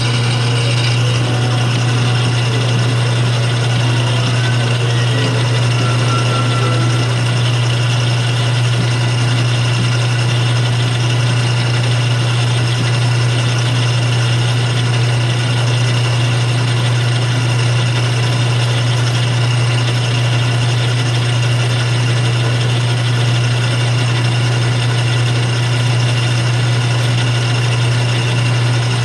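Atlas 6-inch lathe running steadily, with a strong, even low hum from its motor and drive under a constant mechanical noise. A few faint, shifting sounds come through in the first several seconds.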